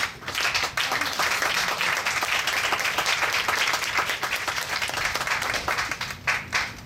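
Audience applause, a dense even clapping that breaks up into separate, more spaced claps near the end.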